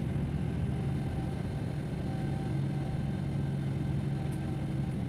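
Steady engine hum heard from inside a vehicle moving across an airport apron, a low even drone with a fainter higher tone above it.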